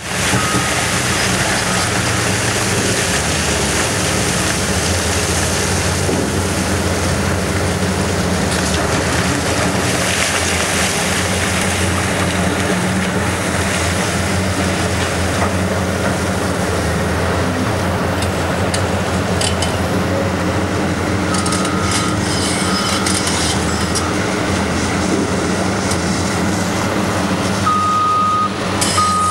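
CAT 390D LME hydraulic excavator's C18 diesel engine running steadily under load as its bucket digs into a rock pile, with rock scraping and falling. A reversing alarm beeps briefly about a second in, again about three quarters through, and repeatedly near the end.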